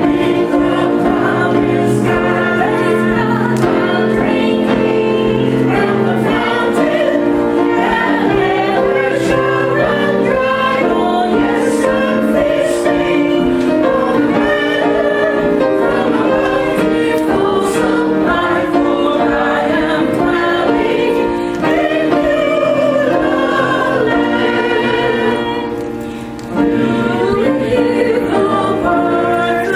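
Church choir singing a gospel hymn, with sustained sung chords under a moving melody. It briefly drops in loudness about 26 seconds in.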